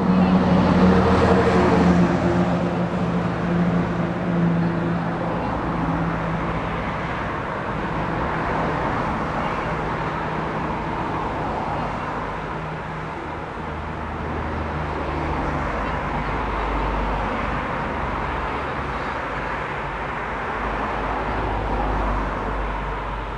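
Road traffic noise: vehicle engines running and passing, with the steady hum of an engine strongest in the first few seconds.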